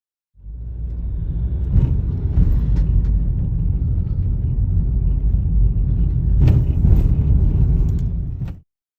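Loud low rumbling noise that cuts in abruptly and stops just as suddenly, with a few sharp clicks and knocks over it.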